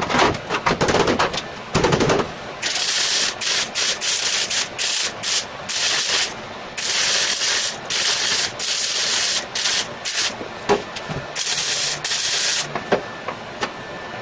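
MIG welder laying many short bursts of weld on steel body panels, stopping and starting every second or so in the rhythm of plug or stitch welding.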